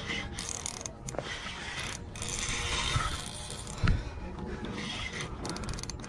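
Fishing reel being cranked against a strong fish on the line, its gears whirring and clicking. A single sharp knock sounds a little before four seconds in.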